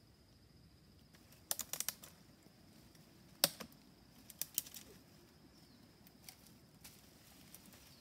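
Chestnuts clicking and knocking as they are gathered by hand: a quick rattle of several hard clicks about a second and a half in, one sharp click about halfway, then a few lighter ones.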